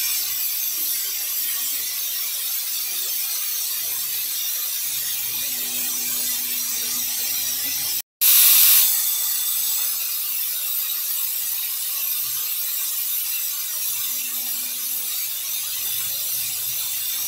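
Pressure cooker whistles: steam hissing out under the weighted valve of an aluminium pressure cooker on a gas stove, each whistle loudest at its start and then steady. One whistle breaks off abruptly about eight seconds in and the next begins at once; each marks the cooker venting at full pressure.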